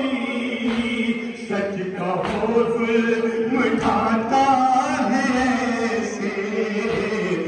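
A crowd of men chanting a noha, a Shia mourning lament, together in long held lines.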